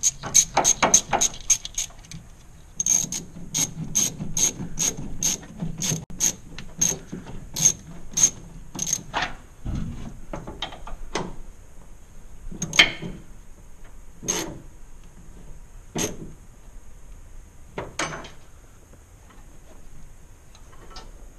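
Ratchet wrench clicking as the tank is tightened down: a fast run of clicks, then about three clicks a second for several seconds, then a few single clicks spaced apart.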